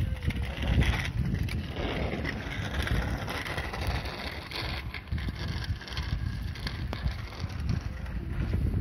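Wind rumbling on the microphone, with the scuffs and rolling tyres of a child's bicycle on asphalt as she climbs on and pedals off.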